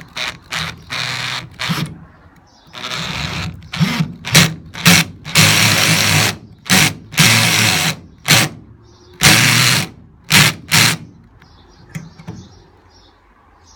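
Cordless drill driving a screw eye hook into a wooden beam, its motor run in stop-start bursts: many short blips and a few longer runs of about a second. It stops near the end.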